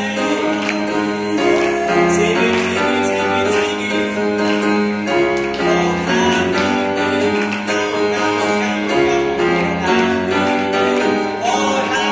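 A singer performing with grand piano accompaniment, with the piano's chords sustained under the vocal melody. The voice glides down on a final note near the end.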